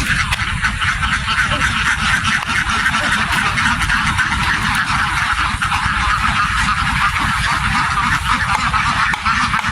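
A large flock of domestic ducks quacking all at once, a dense and unbroken chorus of calls, with a steady low rumble underneath.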